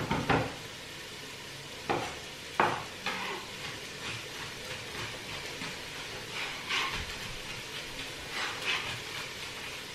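Onion, celery and carrot frying in oil in a pan, a steady sizzle, with a few sharp knocks of a knife on a wooden chopping board, mostly in the first three seconds.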